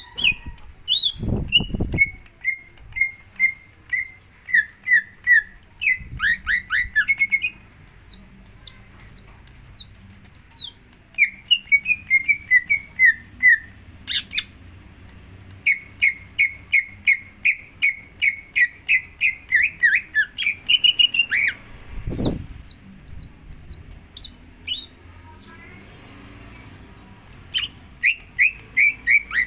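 Green leafbird (cucak ijo) song: long runs of rapid repeated chirping notes interleaved with sharp high whistled notes, with a short pause near the end. This is the kind of lure song played to coax a caged leafbird into singing. Two brief low thumps come about a second in and again about three quarters of the way through.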